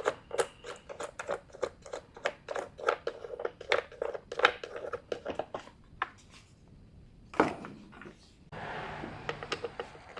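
Rapid clicks and light clatter of a chainsaw being handled and worked on, with one louder knock about seven and a half seconds in; the saw's engine is not running.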